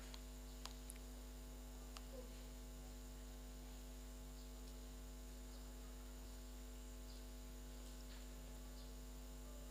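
Steady electrical mains hum from the sound system, with no speech. A few faint clicks come in the first two seconds.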